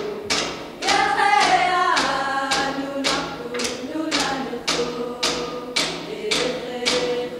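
Young voices singing a traditional Greenlandic song together, coming in about a second in, over a steady beat of sharp strikes about two a second.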